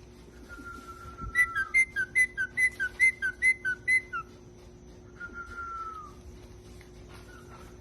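Pet parrot whistling: one long held note, then a quick run of about a dozen short two-note whistles, about four or five a second, and near the end a single drawn-out whistle that falls in pitch.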